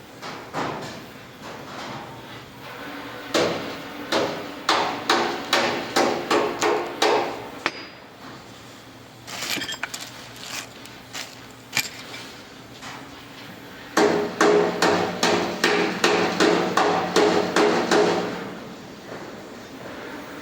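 Hammer striking metal parts of a forklift hydraulic jack cylinder, about two blows a second, each leaving a short metallic ring. There are two runs of heavy blows, one starting a few seconds in and one from about two-thirds of the way through, with lighter, scattered taps in between.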